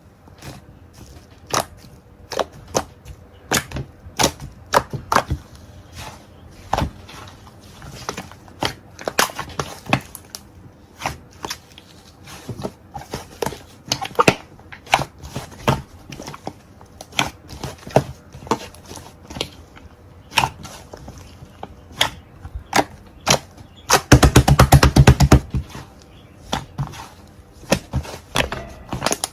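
Sticky cream-textured slime being pressed and squished by hand, giving irregular wet clicks and pops. Near the end comes a fast run of crackling pops lasting about a second and a half.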